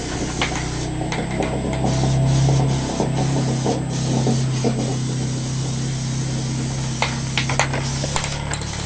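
Aerosol spray can of enamel paint hissing in on-and-off bursts as it is sprayed, over a steady low hum, with a few sharp clicks near the end.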